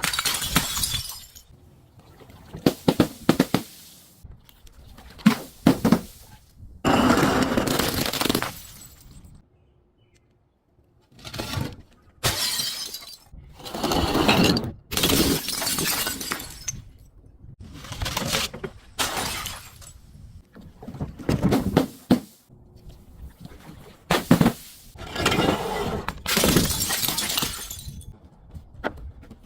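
Glass being smashed and crushed in a long series of crunching, shattering bursts, each a second or two long, with short pauses between them.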